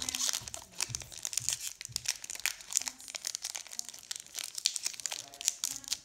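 Foil wrapper of a Pokémon TCG booster pack crinkling and tearing as it is pulled open by hand, in a dense run of irregular sharp crackles.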